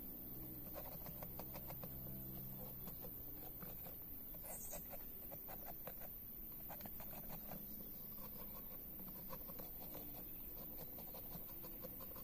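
A large knife blade scraping and shaving the bark off a fresh green shrub branch, in runs of quick, short scratchy strokes.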